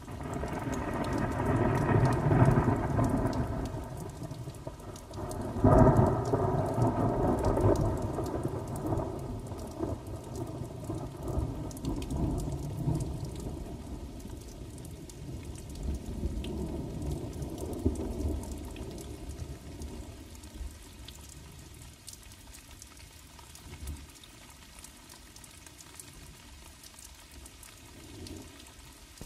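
Thunderstorm: two loud rolls of thunder, the first swelling about two seconds in and the second striking about six seconds in, over rain that slowly fades away.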